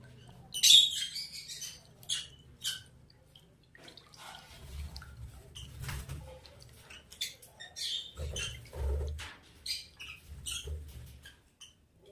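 African lovebirds chirping in sharp, high calls, loudest in a burst about a second in and scattered through the rest, with low muffled thumps now and then.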